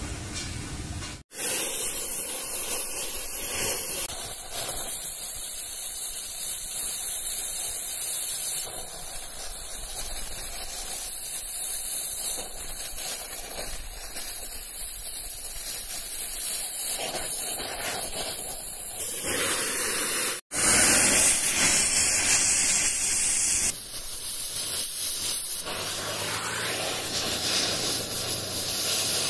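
Oxy-fuel gas cutting torch hissing steadily as it burns old weld beads out of the eye of a steel sledgehammer head. The hiss cuts out suddenly for a moment twice.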